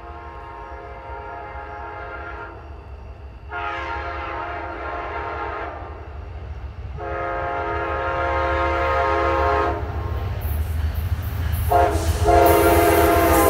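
Amtrak passenger train's locomotive air horn sounding a chord in repeated blasts as the train approaches: three long blasts, then a short one, then another long one held near the end, in the long-long-short-long pattern of a grade-crossing warning. Under the horn, the train's rumble and rail noise grow louder as it closes in.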